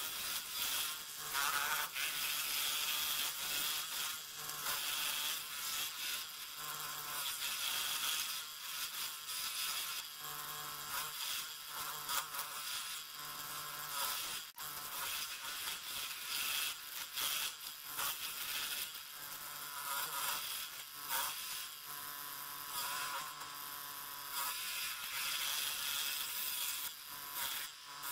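Craftsman scroll saw running, its fine blade stroking rapidly up and down as it cuts through a wooden sign blank: a steady buzz that rises and dips as the workpiece is fed and turned.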